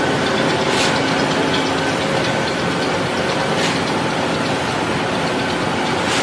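Heavy machinery running steadily, a dense mechanical noise with faint steady hums, broken by three short hissing bursts about three seconds apart.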